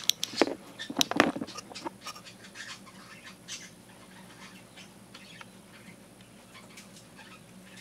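Paper towel crinkling and light clicks as it is handled, in a cluster over the first two seconds, then mostly quiet apart from a few faint ticks and a steady faint hum.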